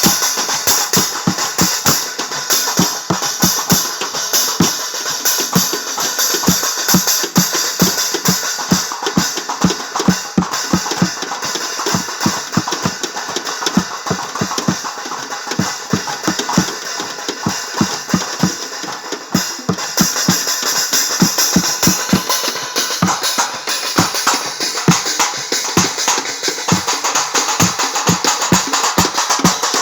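Percussion music: drums beaten in a fast, steady rhythm with a jingling metal layer over them.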